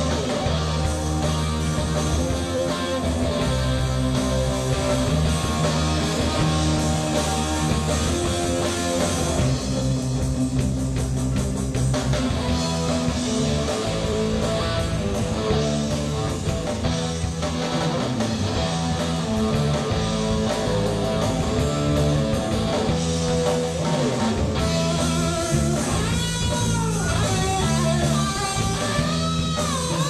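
Live rock band playing an instrumental passage, led by electric guitar over a moving bass line. Near the end the guitar plays notes that bend up and down in pitch.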